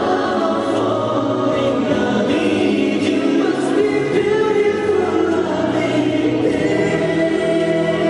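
Live pop concert music: a male vocalist singing into a handheld microphone over the accompaniment.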